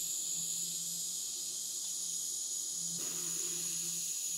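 TIG welding arc running steadily at 180 amps on a pipe hot pass: a constant high hiss with a faint low hum underneath.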